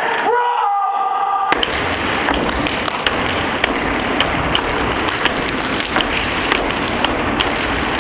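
Step team stomping and clapping in rhythm, sharp hits about two to three a second over a dense wash of crowd noise. The stepping starts about a second and a half in, after a held, pitched call that rises in pitch.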